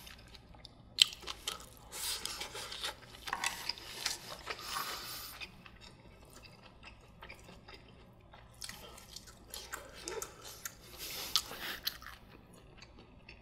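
Close-miked chewing and mouth sounds of someone eating soft steamed egg custard and rice, coming in two irregular stretches. A few sharp clicks, the loudest about a second in, fit chopsticks and a spoon against the bowls.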